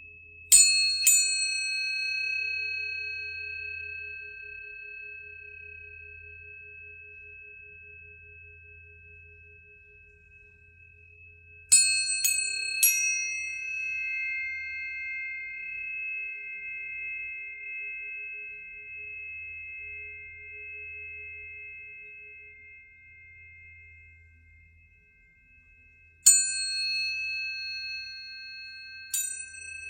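Planetary tuning forks struck in turn: each strike is a bright metallic ping that settles into long, steady pure tones, slowly fading. The strikes come in small groups, twice near the start, three in quick succession about twelve seconds in, and again near the end.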